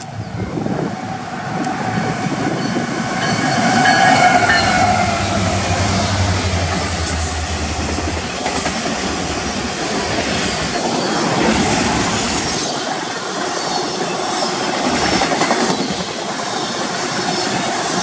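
Union Pacific freight diesel locomotives, a GE C45AH leading two EMD SD70-series units, run past close by, loudest about four seconds in, their low engine drone fading after about eight seconds. Double-stack intermodal container cars follow, rolling by with wheels clacking over the rail joints.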